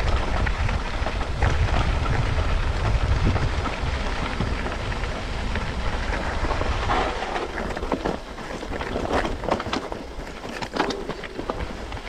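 Mountain bike rolling over a stony dirt track: wind rumbling on the microphone, with the tyres crunching over loose rock and the bike rattling. The rumble eases about halfway through, leaving sharper clacks of stones and frame.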